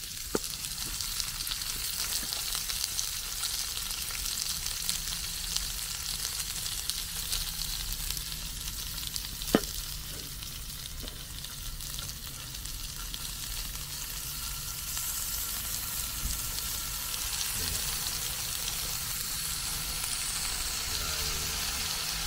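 Sliced meat sizzling steadily on a round slotted yakiniku grill plate over a gas stove, as the fat spatters. A single sharp tap sounds about nine and a half seconds in.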